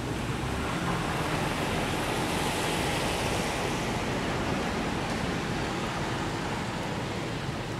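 Steady rushing outdoor noise with no distinct calls, footsteps or other events standing out.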